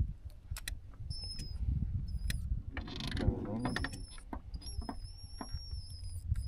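Bow-mounted Minn Kota trolling motor whining at one high pitch, cutting in and out in spells of a second or more, among scattered clicks and creaks over a low rumble.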